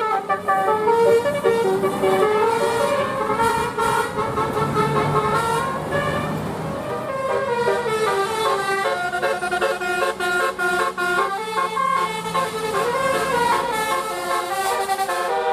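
Telolet Basuri musical air horn on a bus playing a quick tune, several horn tones sounding at once and stepping from note to note. A bus engine runs underneath, most plainly in the middle.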